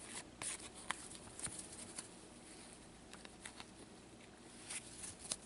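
Faint rustling and scattered light ticks of trading cards being handled and fanned through by hands in cotton gloves.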